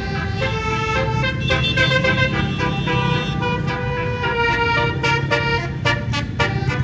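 Tour bus's 18-note basuri musical air horn playing a telolet melody, one horn note after another changing every fraction of a second, over a low engine rumble.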